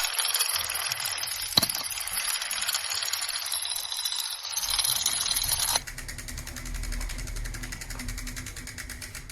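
A rattling, clinking noise with one sharp click, stopping abruptly about six seconds in, followed by a quieter steady hum with a faint rapid pulse.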